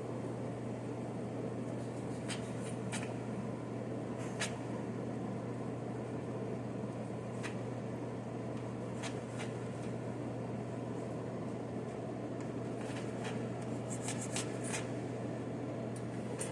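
Steady hum and hiss of a kitchen range-hood fan, with scattered light clicks and taps that come in small clusters.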